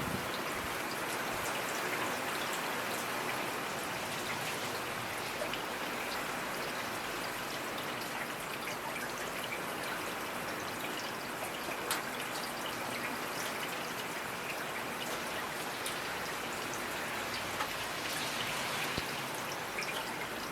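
Steady rainfall, an even hiss with individual raindrops pattering and ticking on surfaces throughout.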